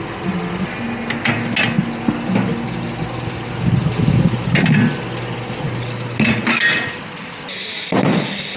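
Hand tools knocking and clicking against a tire during a repair, over a low steady hum. About a second before the end, a loud hiss of air starts.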